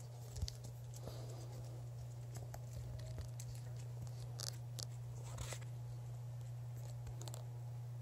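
Steady low droning hum that does not change in pitch or level, with scattered clicks and rustles of the recording device being handled close to the microphone.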